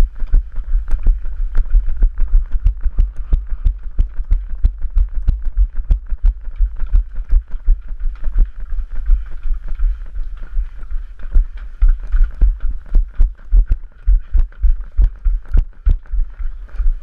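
Running footfalls on stone paving picked up by a head-mounted action camera: heavy, regular low thumps about three a second, each with a sharp click of shoe on stone.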